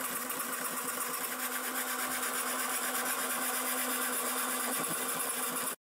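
Small DC motor driving a 3D-printed plastic worm-drive gearbox, running steadily with a rough, noisy grind from the printed gear teeth, which the maker puts partly down to the print quality.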